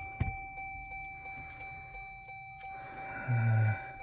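A click, then about three seconds in a short, flat, low electronic tone lasting about half a second, inside a car cabin with the ignition on, over faint steady high-pitched whine from the electronics.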